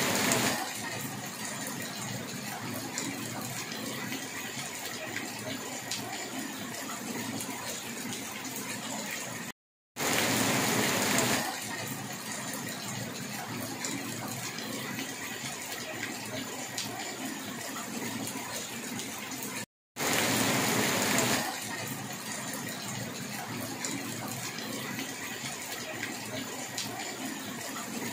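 Steady rush of flowing water, an even hiss with no distinct events. It repeats in near-identical stretches of about ten seconds, and each stretch opens with a louder second and a half just after a brief cut to silence.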